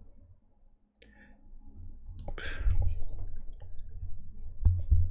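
Clicks and low bumps from a small object being handled close to a desk microphone, with a short hiss about two and a half seconds in.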